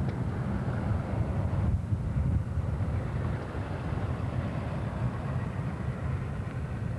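Distant, steady rumble of a B-17 bomber's four radial engines at takeoff power during its takeoff roll.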